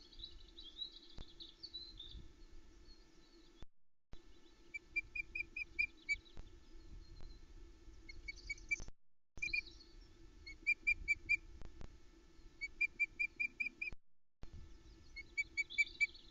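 Female osprey calling to her mate on the nest: repeated runs of five to seven short, high whistled chirps, about five a second, with softer warbling higher up near the start and end. The stream's audio cuts out briefly about every five seconds, and there is a faint steady hum underneath.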